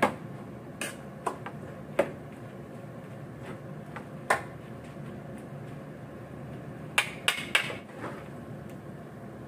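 Cooking utensils knocking and scraping against a pan as vegetables are stir-fried, in scattered single clacks with a quick run of three about seven seconds in, over a faint steady hiss.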